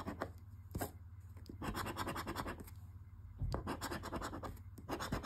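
Scratch-off lottery ticket being scratched: runs of quick scraping strokes over the latex coating, in short bursts with brief pauses between them.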